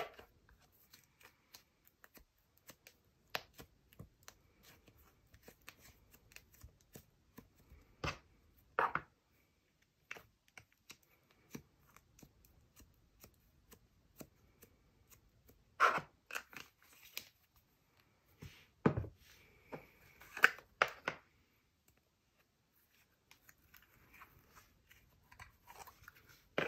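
Soft slime being squeezed, pulled apart and pressed by hand, giving scattered short sticky crackles and squishes, with a few clicks from plastic slime tubs being handled.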